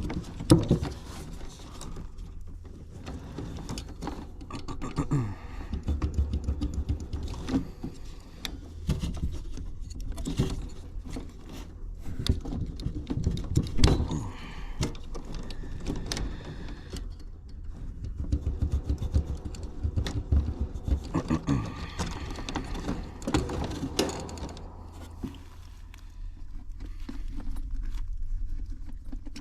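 Hand-work noises of moving wires from an old heat-kit contactor to a new one: irregular clicks, light metallic rattles and rustling of wires and tools, over a steady low hum.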